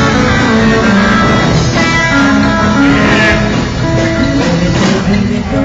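Live band playing a country-rock instrumental break: a guitar lead picks a run of single notes over the band's rhythm.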